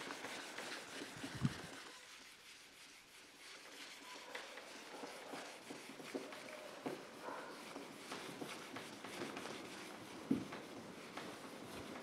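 Faint rubbing and light knocks of a handheld duster wiping marker writing off a whiteboard, easing off briefly about two seconds in.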